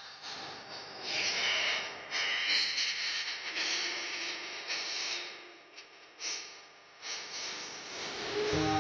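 A hiss-like noise with no clear pitch swells and fades in a gap between tracks, then bass-heavy music from a DJ sound system comes back in near the end.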